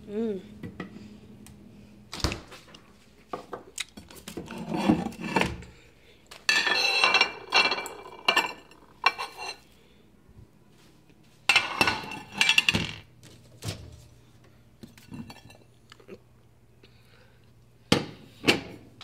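Kitchen handling sounds: a plate clinking and knocking, with scattered knocks and two longer stretches of rustling and scraping, as a frozen burrito is taken from the freezer, set on a plate and put into a microwave.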